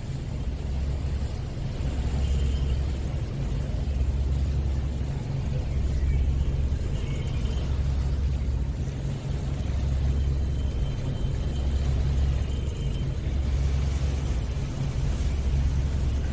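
Low rumble aboard a ro-ro ferry under way, swelling and easing about every two seconds, with wind buffeting the microphone.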